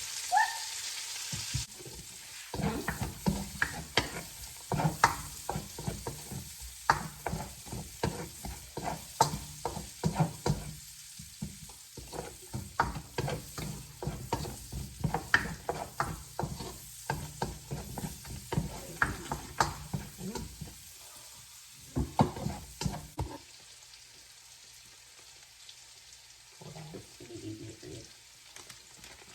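Onion, garlic and bacon frying in oil in a pan, sizzling, while a utensil scrapes and taps against the pan as it is stirred. The stirring stops a little over two-thirds of the way through, leaving a fainter sizzle.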